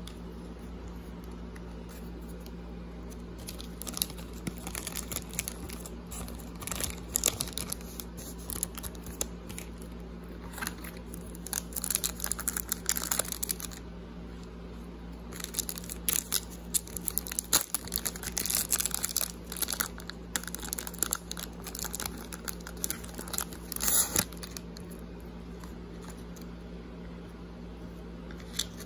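A trading card pack's wrapper being torn open and crinkled, in irregular crackling bursts that start a few seconds in and stop about five seconds before the end. A steady low hum runs underneath.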